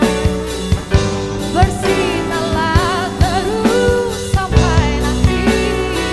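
A woman singing with a live band, her voice wavering on held notes, over keyboard, electric guitar, bass guitar and a steady drum-kit beat.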